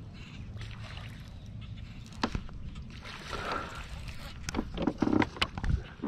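Handling noise on a fishing kayak during a cast and retrieve: scattered sharp clicks and knocks, loudest in a cluster near the end, over a steady low rumble.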